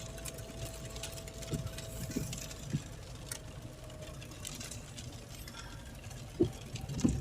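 A steady low engine hum with a single held whine for the first few seconds, broken by a few soft knocks.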